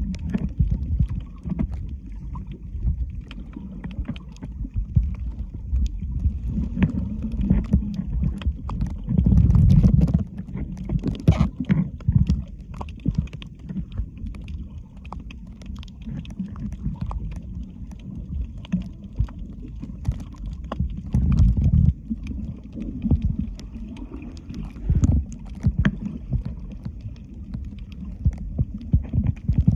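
Water sloshing and splashing with wind buffeting the microphone, in irregular surges.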